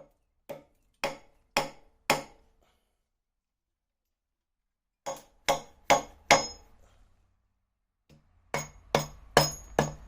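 Hammer blows on metal during work on a boat motor: about five strikes at roughly two a second, a pause, four more, then a quicker run of strikes near the end, some with a short metallic ring.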